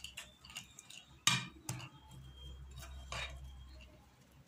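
A spoon clinking and scraping against a ceramic plate while stirring a thick paste of mashed black soap, turmeric and honey: a few sharp clinks, the loudest about a second in.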